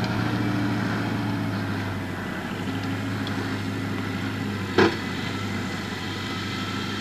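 Schiltrac transporter's engine running steadily while the machine crosses a steep slope with a loader wagon. A single sharp knock sounds once, close to five seconds in.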